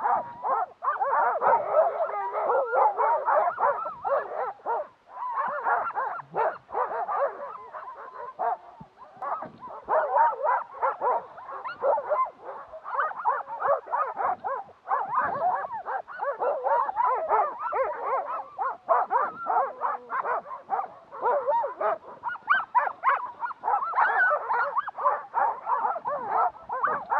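A harnessed sled dog team yelping, whining and barking without a pause, many dogs at once, the eager clamour of sled dogs held stopped on the trail before they can run.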